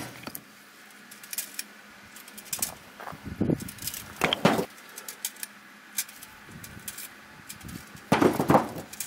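Split wood chunks knocking and clattering against each other as they are handled on a pile, in a few separate bursts with small clicks between.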